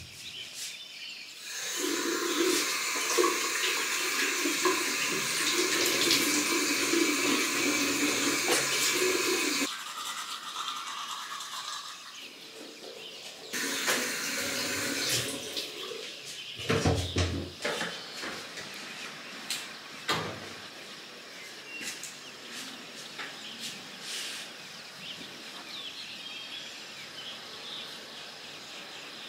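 Water running, as from a tap: a loud spell that starts and stops abruptly, lasting about eight seconds, and a shorter spell a few seconds later. After that come fainter noise and a few knocks.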